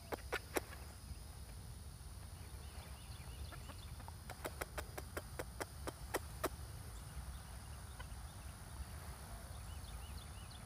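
Chickens giving alarm clucks: quick runs of short, sharp notes, a brief run right at the start and a longer, faster one from about four to six and a half seconds in, over a low wind rumble.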